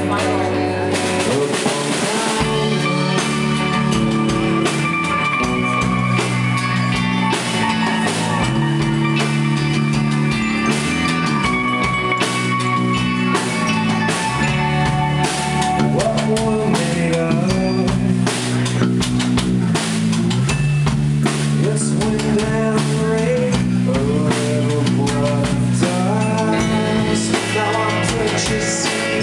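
Live rock band playing an instrumental passage: electric guitars and electric bass over a drum kit keeping a steady beat.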